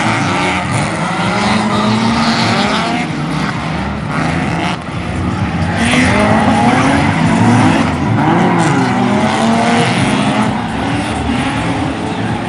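Several drift cars' engines revving up and down, overlapping, with tyre squeal from the sliding cars.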